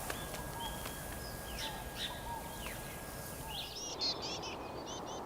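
Outdoor wildlife ambience: birds giving scattered short chirps and calls over a steady background hiss, with a quick flurry of high chirps about four seconds in.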